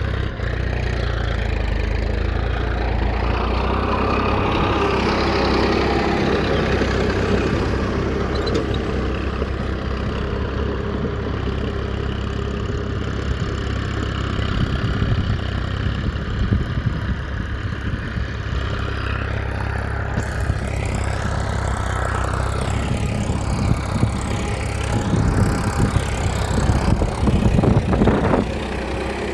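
An engine running steadily, with irregular clattering knocks growing in the last few seconds.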